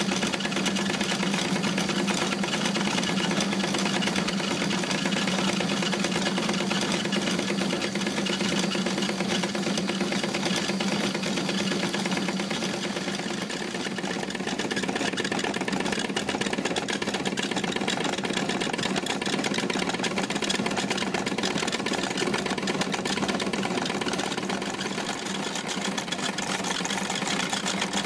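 Wilesco D-20 miniature steam engine and its belt-driven toy shop machines running steadily: a fast, even mechanical clatter with a steady hum underneath.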